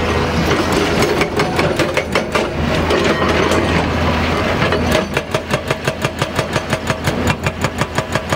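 Crawler excavator's diesel engine running under load with a hydraulic rock breaker at work; about five seconds in the breaker settles into a fast, even hammering of roughly eight blows a second.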